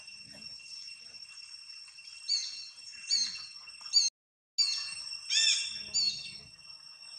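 Five short, high-pitched arching animal calls in quick succession, the loudest about two-thirds of the way in, over a steady high-pitched whine. The sound drops out completely for about half a second in the middle.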